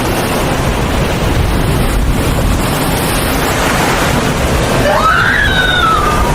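Loud, steady rushing noise of ocean surf. About five seconds in, a single pitched cry rises and then falls over it.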